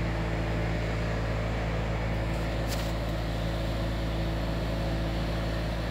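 Steady low hum of workshop machinery, with a faint click about two and a half seconds in.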